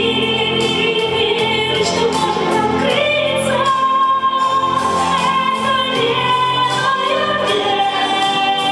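A woman singing a song through a microphone over backing music with a regular beat, holding long notes.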